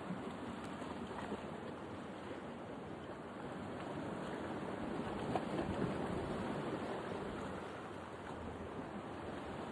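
Sea water washing and rushing in a steady wash of noise that swells a little about halfway through and then eases.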